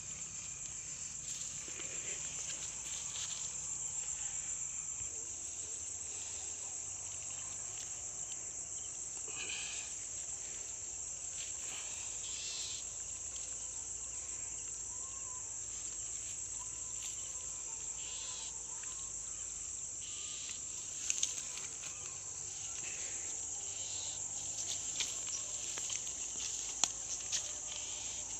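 Continuous high-pitched chorus of insects trilling steadily, with scattered rustles and a few sharp clicks, the loudest about two-thirds of the way through and near the end.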